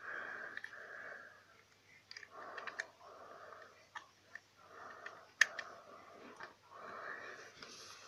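Soft breathy sounds close to the microphone, four of them about a second each. They are broken by a few sharp clicks of plastic Rubik's cube pieces being handled, the loudest about five and a half seconds in.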